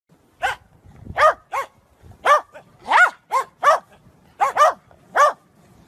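Corgis barking: about ten short, high barks at an uneven pace, each rising and falling in pitch.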